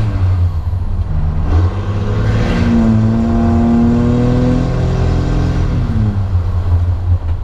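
Diesel pickup engine running through an exhaust stack, heard from inside the cab. It pulls up in pitch under acceleration from about a second and a half in, holds briefly, then drops off as the throttle is released.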